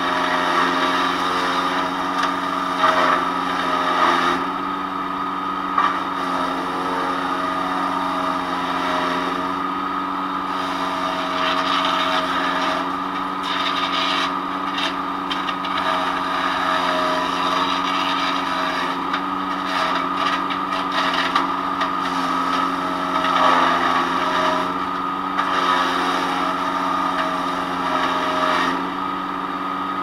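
PowerKing PK0915 5-inch wood chipper, its small gas engine running steadily at full speed while the blades chip palm fronds fed in by hand. The shredding comes in irregular louder bursts over the engine.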